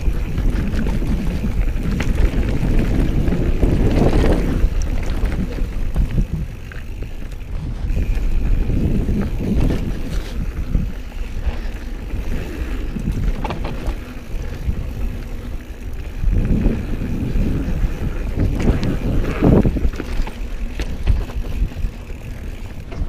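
Mountain bike riding fast down rocky dirt singletrack: wind buffets the camera microphone, the tyres crunch over dirt and stones, and the bike rattles with occasional knocks over bumps.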